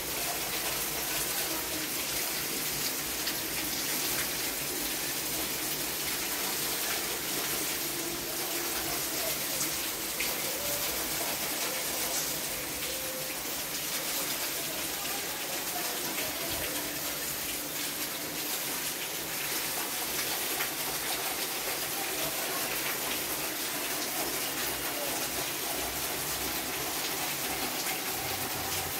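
Steady rain falling, heard as a continuous, even hiss of water.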